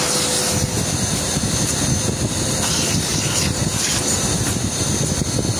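Industrial vacuum cleaner running steadily, its hose nozzle sucking over a fabric-covered upholstery panel.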